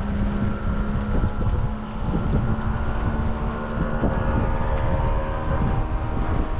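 A boat motor running steadily, with heavy wind buffeting on the microphone.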